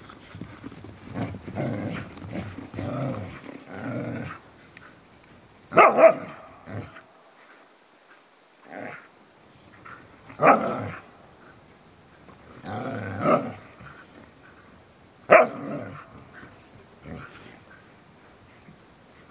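Sighthounds growling during rough play, in rumbling stretches, with three sharp barks about six, ten and fifteen seconds in.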